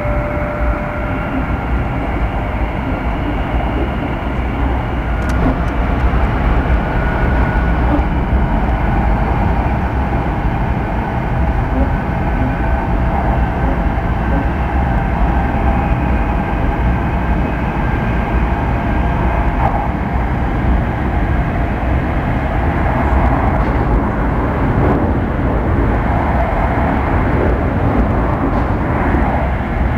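Steady running noise of a train heard from inside the car, a rumble and hiss of wheels on rail, with faint whining tones that drift slowly up and down in pitch.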